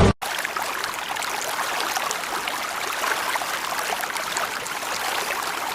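Steady babbling of a flowing stream, water splashing and trickling.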